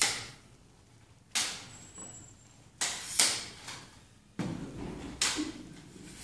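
A metal video tripod being handled and its legs adjusted: about half a dozen sharp knocks and clatters, each dying away quickly, with a rattle and shuffle between them.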